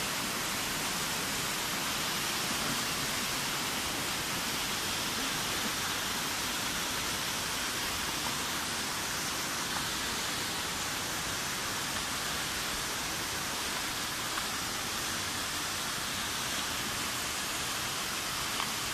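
Steady rushing of a waterfall and the rocky stream below it, an even wash of falling water.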